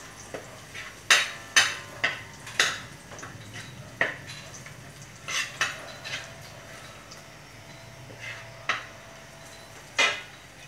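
Metal spatula scraping and clanking against a metal wok while minced garlic and shallots are stir-fried in oil. There are about ten sharp, uneven clatters, most of them in the first half, over a faint sizzle.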